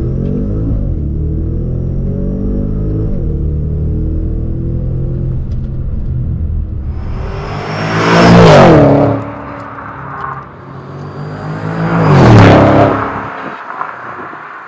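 A stage-3 tuned Audi S6's twin-turbo V8, fitted with RS7 turbos, pulling hard under full throttle with a deep, steady engine note. It then rushes past twice, loud each time, with the pitch dropping as it goes by, about eight and twelve seconds in.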